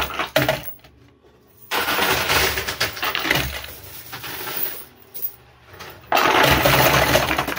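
Quarters clattering inside a coin pusher machine as the pusher shelf shoves them along, in three noisy bursts of about one to three seconds each.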